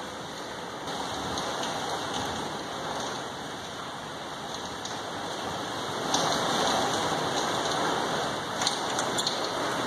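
Heavy rain and small hail pelting a window, a steady hiss with sharp ticks of hailstones striking. It grows louder about six seconds in.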